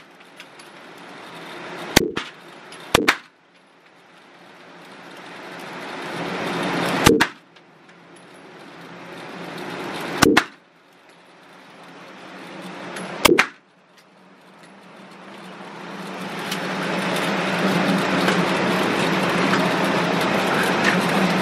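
Five handgun shots at an indoor range, spaced irregularly, each a sharp crack with a short echo. Two come about a second apart early on, and the last one falls near the middle. A steady background hum follows.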